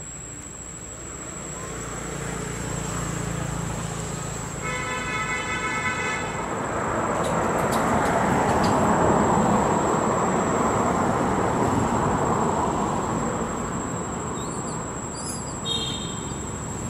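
A vehicle passing, its noise swelling to a peak about nine seconds in and then easing off, with a horn toot lasting about a second and a half about five seconds in. A steady high-pitched insect drone sits underneath.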